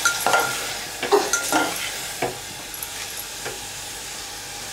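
A metal spoon scraping and knocking against the inside of a pressure cooker as vegetables and ground spices are stirred, over a steady sizzle of the masala frying in oil. Several stirring strokes come in the first two seconds or so, then the sizzle carries on alone.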